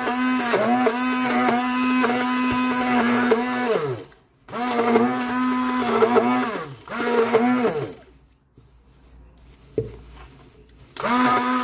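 Electric blender grinding sesame seeds and oil into tahini paste, run in short pulses: the motor hums at a steady pitch, then winds down with a falling pitch each time it is switched off. After three runs it stops for about three seconds, with one brief tap in the pause, and starts again near the end.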